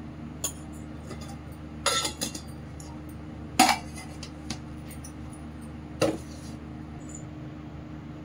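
Metal spoon clinking and knocking against a stainless steel mixing bowl, a handful of sharp clinks with the loudest about three and a half seconds in, over a steady low hum.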